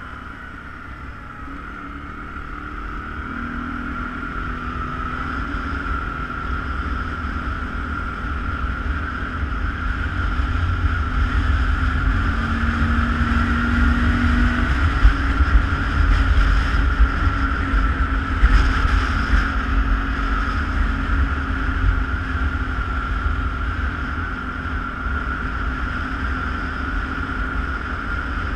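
ATV engine running steadily while riding, with heavy low wind rumble on the helmet or handlebar camera's microphone. The sound grows louder over the first ten seconds or so, then holds steady.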